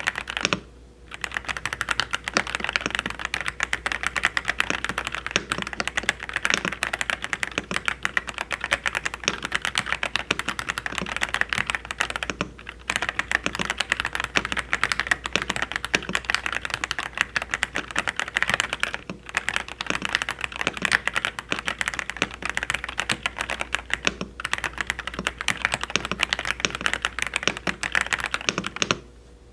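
Typing on a Dareu A104 Pro full-size mechanical keyboard: a fast, dense stream of key clacks with a few short breaks, stopping just before the end.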